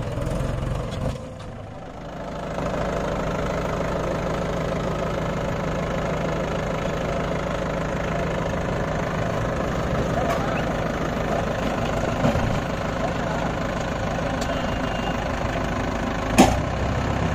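Heavy diesel engine running steadily, dipping in level briefly about a second in, with one sharp knock near the end.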